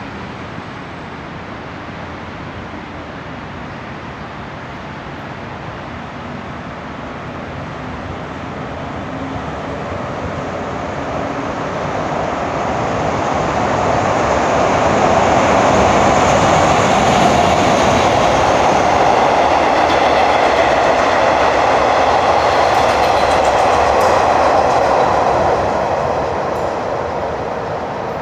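SRT Alsthom ALS-class diesel-electric locomotive ALS.4136 hauling a passenger train through the station on the elevated track. The sound of its engine and wheels builds as it approaches, is loudest for about ten seconds as it passes, and begins to fade near the end.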